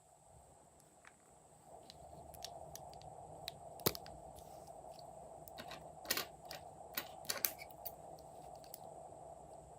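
Glossy slime being worked by hand, giving off scattered crisp clicks and pops, a sharp one about four seconds in and a quick run of them a couple of seconds later.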